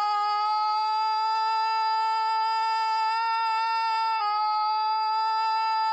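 A boy's long scream held on one steady high pitch, dipping slightly in pitch about four seconds in.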